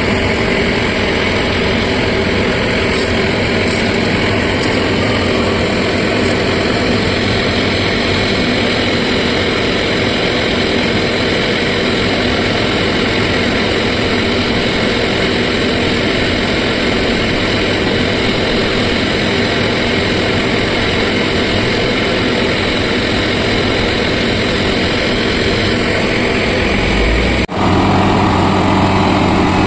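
Diesel engines of heavy machinery, an excavator and a Hydra mobile crane, running steadily under load while lifting a plant drum. About 27 seconds in, the sound breaks off for an instant and comes back with a deeper engine note.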